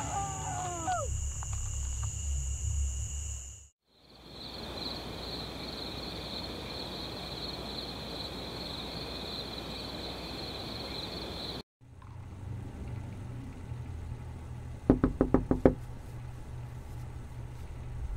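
A quick run of about five knocks on a door, loud and sharp, over a low steady hum of room ambience. A falling music sting fades out in the first second.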